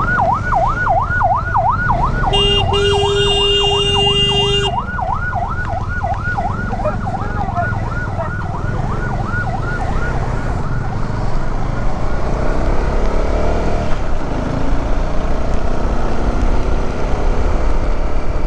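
Ambulance siren in a fast yelp, rising and falling about three times a second, fading away about halfway through. A vehicle horn blares for about two seconds near the start, over a steady low rumble of road and engine noise.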